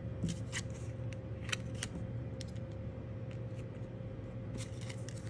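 Small clicks and light scraping of nail stamping tools on a metal stamping plate: a plastic scraper card working the polish and a clear stamper pressed onto the plate. A steady low hum runs underneath.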